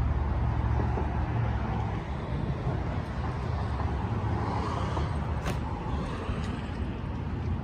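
Nissan Altima's 2.5-litre four-cylinder engine idling with a steady low hum, just after a rev has fallen away. A single light click comes about two-thirds of the way through.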